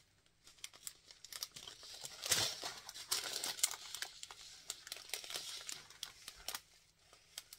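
Strips of thin plastic bags of resin diamond-painting drills crinkling and rustling as they are handled, with small sharp clicks and a louder rustle about two seconds in.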